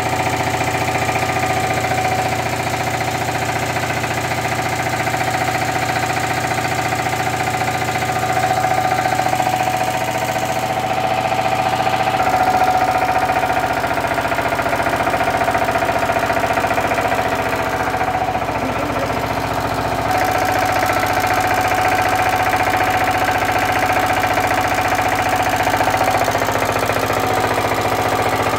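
Four-stroke diesel test engine running steadily under dynamometer load, with a knocking beat. Its tone shifts slightly about twelve seconds in.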